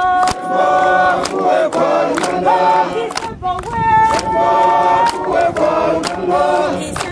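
A group of soldiers singing in chorus, led by one soldier, with steady hand clapping in time at about two claps a second.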